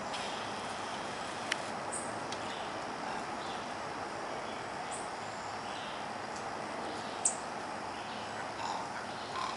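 Steady outdoor background noise with a few short, high chirps from small birds, the loudest about seven seconds in, and a single sharp click about one and a half seconds in.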